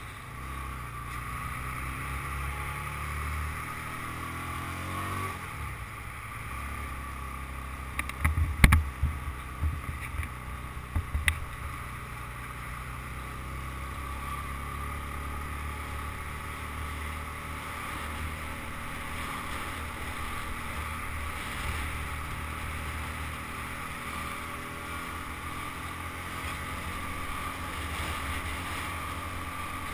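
Motorcycle engine running under way with wind noise on the microphone; the engine pitch rises over the first few seconds as it accelerates. A run of sharp knocks about eight to eleven seconds in is the loudest sound.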